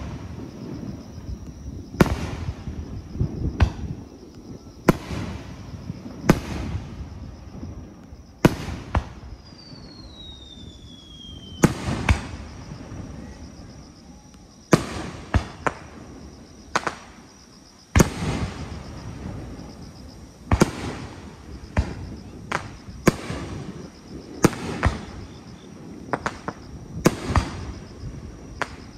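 Aerial firework shells bursting in a fast, irregular series, sharp booms every second or two with rumbling echoes between them. A falling whistle is heard about ten seconds in.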